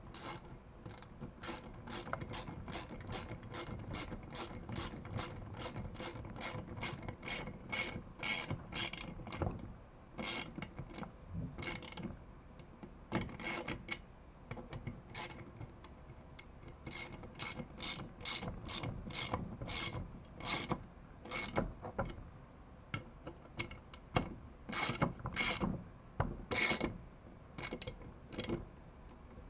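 Ratchet wrench with a 10 mm socket clicking in quick runs of strokes with short pauses, as Loctite-coated bolts are run down into the engine's threaded holes until they seat.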